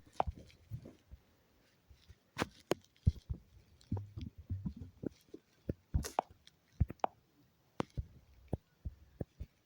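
Irregular clicks and soft knocks, scattered unevenly with short pauses between them.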